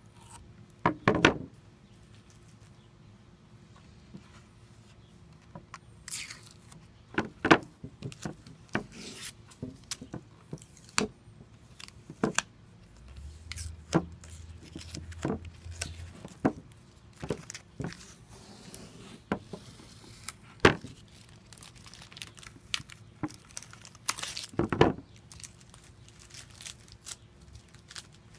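Blue painter's tape being peeled off a wooden cabinet-door frame: irregular crackling rips with a few louder sharp snaps scattered through.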